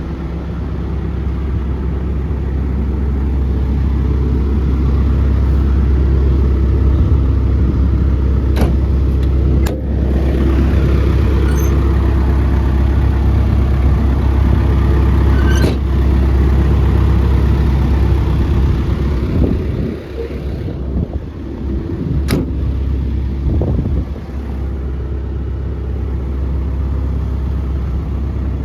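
Case CX240B excavator's Isuzu diesel engine idling steadily, growing louder for much of the middle stretch and easing back later on, with a few sharp clicks or knocks over the hum.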